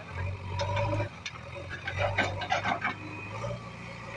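JCB 3DX backhoe loader's diesel engine working, a low drone that swells and eases as the machine works its loader bucket, with scattered clicks and clatter over it.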